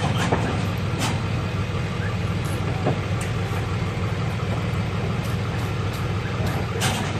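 Truck engine running with a steady low rumble, with a few sharp knocks and rattles over it.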